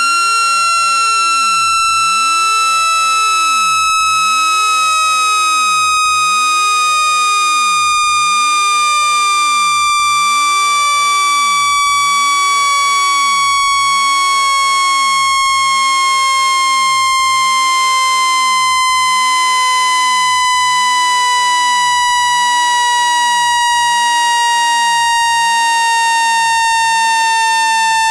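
Synthesized speaker-cleaning tone, a steady loud electronic tone with overtones that glides slowly and evenly down in pitch. It is played through a phone or laptop speaker to shake dust out of the grille.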